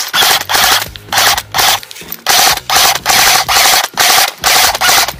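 Cyma M4 airsoft electric gun firing a rapid string of short rasping bursts, about three a second.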